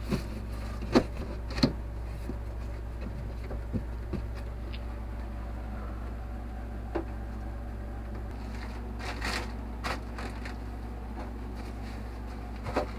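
Scattered light knocks, clicks and rustles of things being handled and set into a cabinet, with two sharp knocks in the first two seconds, over a steady low hum.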